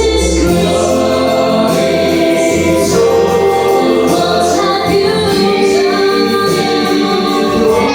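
Several voices singing together over backing music, a choir-like performance of a song.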